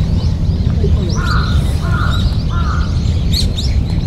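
A crow cawing three times in quick succession, with smaller birds chirping throughout. Under it all is a steady low rumble.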